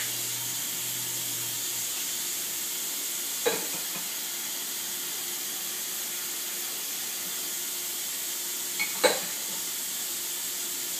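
Kitchen tap running in a steady hiss of water while a glass measuring cup is filled, stopping at the very end. Two short knocks are heard, about three and a half seconds in and again, louder, near the end.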